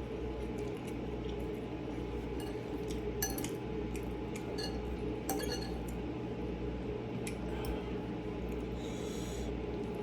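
Metal utensils clinking now and then against a bowl or plate while noodles are eaten, over a steady low background hum.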